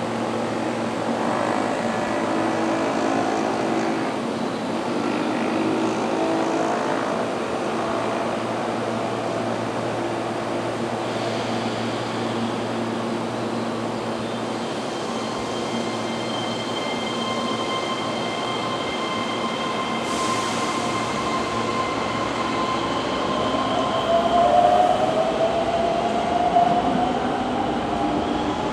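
A Keihan 6000 series electric commuter train pulling in and slowing to a stop at the platform, with steady rail rumble. In the second half come thin high whining tones, and near the end one tone slowly rises in pitch as the train draws closer and gets louder.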